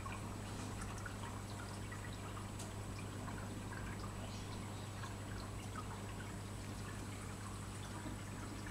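Aquarium water trickling and dripping in small scattered splashes, over a steady low hum.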